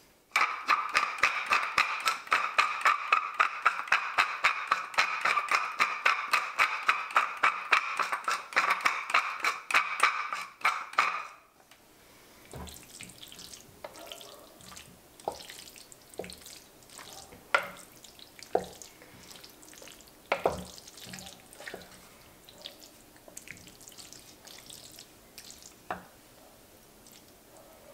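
Pepper mill grinding black pepper in a quick, steady rhythm for about eleven seconds, stopping abruptly. Then a wooden spoon stirs thick, creamy shell pasta in a ceramic baking dish, with scattered soft clicks against the dish.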